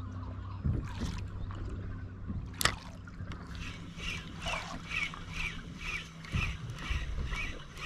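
Spinning reel being cranked to retrieve line, a rhythmic whir repeating about two to three times a second from about halfway through. A steady low boat-engine hum runs underneath, and there is one sharp knock a little under three seconds in.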